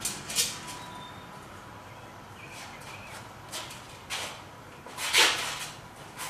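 Scattered workshop handling noises: a few short scuffs and knocks, with one louder, longer scrape about five seconds in, as a person moves around and handles a hanging metal-tube paramotor frame.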